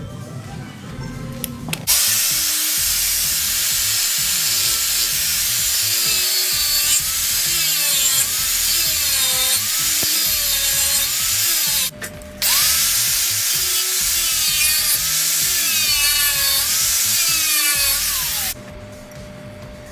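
Electric angle grinder with a thin cut-off disc cutting through a Damascus steel blade blank. Its whine dips and recovers over and over as the disc bites into the steel. It starts about two seconds in, cuts out briefly about two-thirds through, then runs again until shortly before the end.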